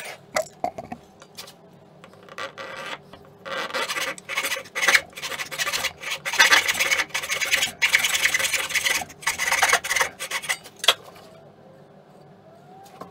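Hand backsaw cutting into a piece of wood held upright in a vise: a few light knocks as the saw is handled, then about seven seconds of repeated rasping saw strokes starting about three and a half seconds in.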